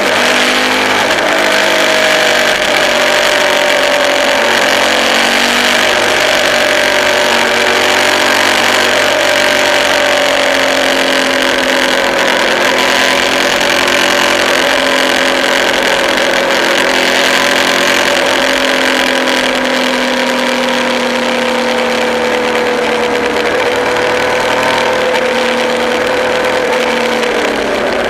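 Motorcycle engine running at a steady road speed, its note holding nearly even and sinking slowly over the stretch, under a loud rush of wind noise.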